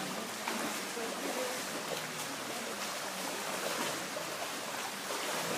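Swimming pool water ambience: a steady wash of moving, lapping water with small scattered splashes.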